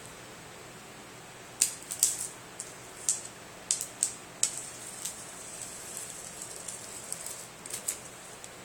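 Box cutter slicing through plastic stretch wrap on a cardboard box, giving irregular sharp crackles and snaps. The loudest come in a cluster between about one and a half and four and a half seconds in, with smaller ones after.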